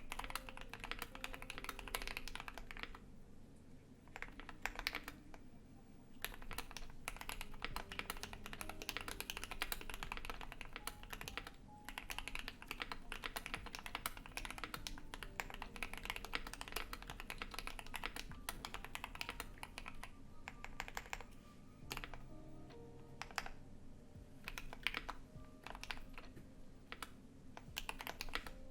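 Continuous typing on a Keychron Q1 mechanical keyboard with lubed and filmed JWK Alpaca linear switches, a polycarbonate plate and ABS keycaps, the key strokes given added reverb. The typing stops for short moments about three seconds in, again about five seconds in, and for a longer stretch past twenty seconds.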